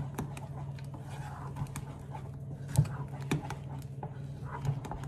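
Wooden spoon stirring thick chickpea-flour batter in a pot: scattered soft taps and knocks of the spoon against the pot, with a sharper knock just under three seconds in, over a steady low hum.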